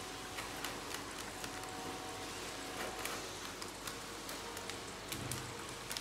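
Plastic fish bag crinkling and rustling as it is cut open with scissors, with scattered sharp snips and crackles over a faint steady hiss.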